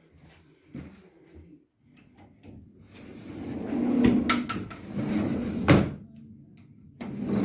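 Pocket door rolling along its overhead track, building to a sharp knock about five and a half seconds in, with a few small clicks before it. A second slide starts near the end.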